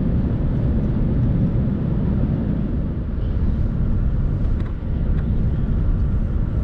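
Cabin noise aboard an Airbus A380 on final approach: a steady low rumble of engines and airflow with a thin hiss on top.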